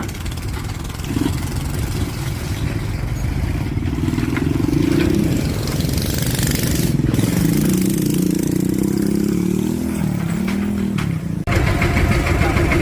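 Engine running with a steady low rumble, its pitch rising and falling from about four seconds in; the sound cuts abruptly near the end to another engine running.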